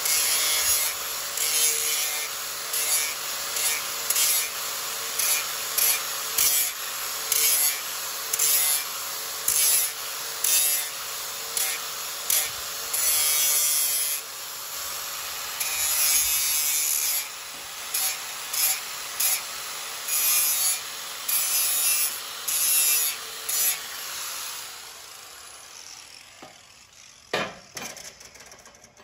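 Angle grinder running and grinding the end of a metal exhaust test pipe in repeated short passes, each pass a louder hiss of the disc on the metal. Near the end the grinder is switched off and spins down, and there is a clunk as it is set on the bench.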